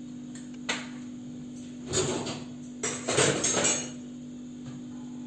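Kitchen utensils clattering against a pan on the stove: a single sharp knock just before one second in, then two louder bursts of clinking and scraping a little after two and three seconds, over a steady low hum.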